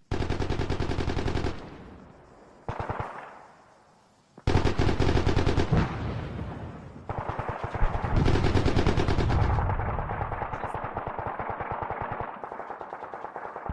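Automatic gunfire in long rapid bursts of closely spaced shots: one burst, a fading echo and a short burst about three seconds in, then longer bursts from about four and a half seconds on that run almost without pause.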